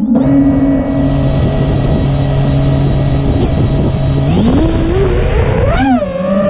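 FPV quadcopter's brushless motors spinning steadily at idle with a high whine, then spooling up in a rising pitch about four seconds in as the throttle is raised, the pitch wavering up and down near the end.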